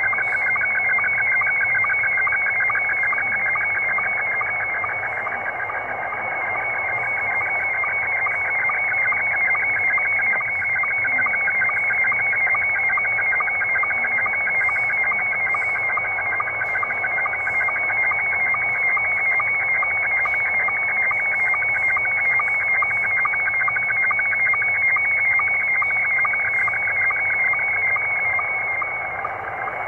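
Slow-scan television (SSTV) picture signal received on shortwave in upper sideband: a continuous high tone pattern pulsing rapidly and evenly line after line, over radio hiss. It is heard through the receiver's noise blanker and noise reduction, which spoil its decoding.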